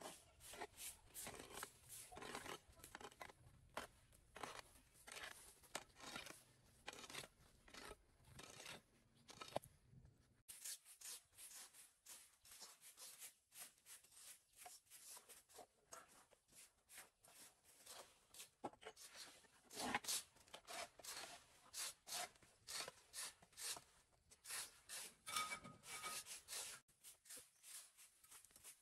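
Quick repeated scraping strokes of yard tools. First a hoe chops and scrapes into grassy soil; then, after a cut about ten seconds in, a broom sweeps dry leaves and dirt across a concrete path.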